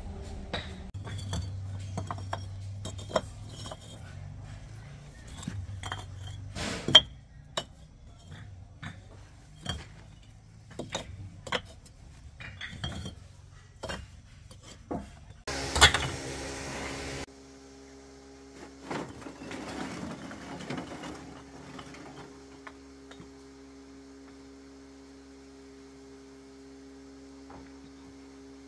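Scattered sharp knocks and clinks of hard objects being handled, two of them much louder than the rest. A brief burst of noise comes about two-thirds of the way through, then a steady hum.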